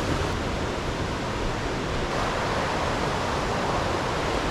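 Steady rushing of river water, an even roar with no breaks.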